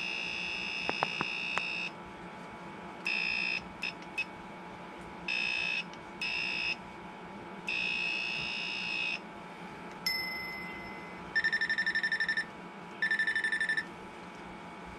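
Electronic buzzer beeping in a string of separate tones, some long and some short, then a lower tone that fades away, and near the end two bursts of fast pulsed beeping.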